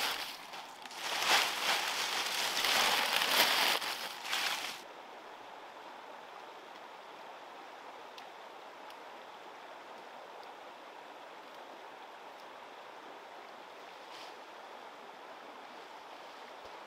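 Dry bamboo leaves and straw crackling and rustling as a hand presses them into a woven bamboo basket, stopping about five seconds in. After that only a steady faint hiss of outdoor background remains.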